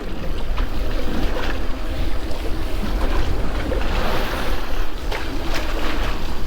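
Wind buffeting the microphone over the wash of waves against a boat's hull, a steady rumbling noise with a few light knocks.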